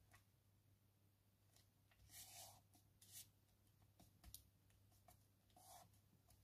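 Near silence, broken by a few faint, brief rustles of paper as die-cut pennants are pressed and smoothed down onto a card.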